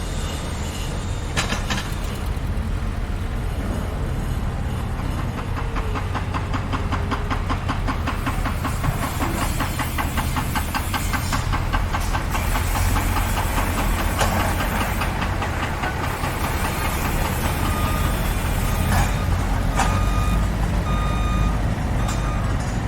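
Heavy diesel machinery running with a steady low rumble, joined in the middle stretch by a fast mechanical rattle. Near the end a reversing alarm beeps about once a second.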